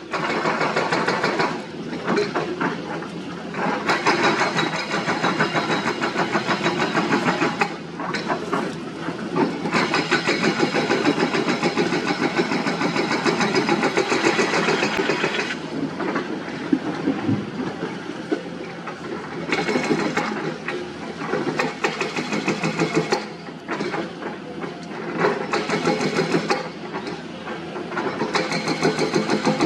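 Diesel engine of heavy earthmoving machinery running under working load, rising into several louder spells of a few seconds each and then easing back.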